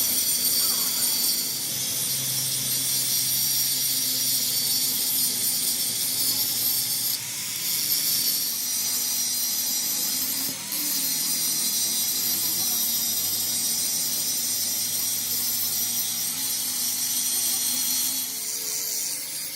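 Electric arc welding: a steady, loud, high-pitched crackling sizzle from the welding arc. It breaks off briefly twice, about 7 and 10 seconds in, and stops shortly before the end.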